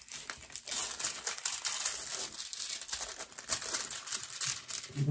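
Crinkling of a diamond painting kit's packaging being handled and unwrapped by hand: a dense, irregular crackle that goes on almost throughout.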